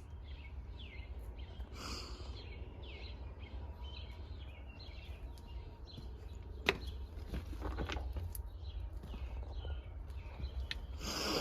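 A bird chirping over and over, a short falling chirp about twice a second, over a steady low rumble. There is a single sharp click a little past halfway.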